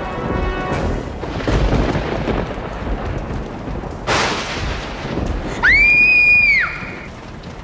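Thunderstorm sound effect: steady rain with rolling thunder, a sharp thunderclap about four seconds in. Near the end, a shrill scream that rises, holds about a second and falls away.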